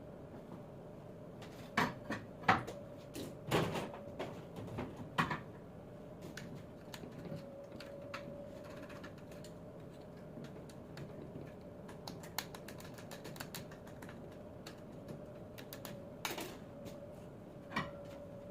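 Scattered knocks and light clicks of tools and parts being handled, louder in the first few seconds and once near the end, over a steady faint hum.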